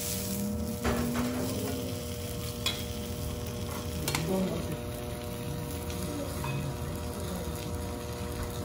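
Wagyu steak sizzling as it sears on a steel teppanyaki griddle, a steady frying hiss. Three sharp clicks in the first half come from the steel knife and fork striking the griddle.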